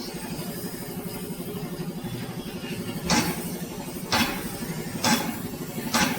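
A steady mechanical hum. About halfway through, sharp knocks join it, about one a second, four in all, like metal being struck in a workshop.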